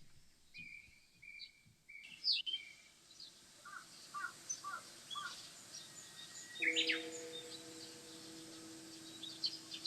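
Birds calling: first a run of four short, even whistled notes, then a series of paired lower notes, with scattered high chirps throughout. A steady low hum comes in about two-thirds of the way through.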